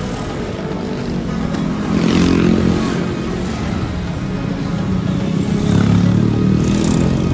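Motorbike engines running on a street: a steady drone that swells about two seconds in and again near six seconds as motorbikes pass.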